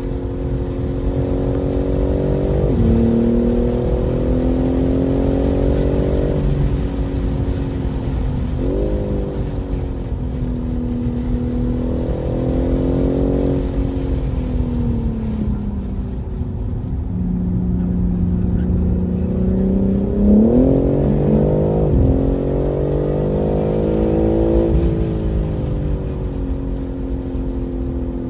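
BMW M3 Competition's twin-turbo inline-six at speed on a race track. The engine note climbs and falls in pitch, with several abrupt jumps as it shifts gears.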